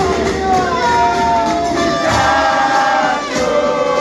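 Crowd of football fans singing a chant together, many voices holding long notes over the noise of the crowd.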